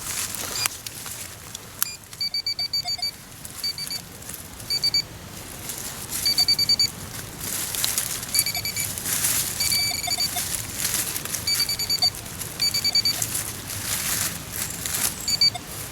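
Metal-detecting pinpointer beeping in quick strings of short, high, fixed-pitch beeps, again and again, as it is probed through dug soil in search of a target. Scraping and rustling of soil and forest litter is heard alongside.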